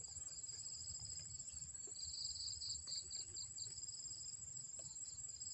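Insects calling steadily in the grass: an unbroken high-pitched buzz, with a second, slightly lower trill pulsing in quick chirps a couple of seconds in.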